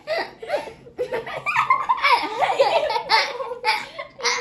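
Children laughing and giggling together in repeated bursts.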